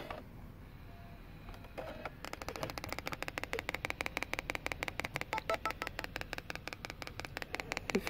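Compaq Presario CQ60 laptop's built-in speaker clicking rapidly and evenly, starting about two seconds in after a quiet hum. The repairer traces the clicking to a short in the speaker wires.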